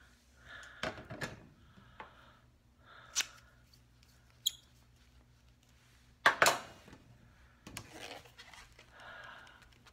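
Handling noise from a small lip colour tube and other items close to the microphone: scattered clicks and knocks, with a loud double knock about six seconds in. Soft breathy sounds come between them.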